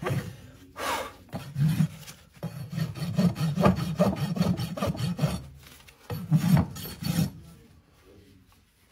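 Farrier's flat rasp scraping across a horse's hoof in a run of rough back-and-forth strokes, which stop about seven seconds in.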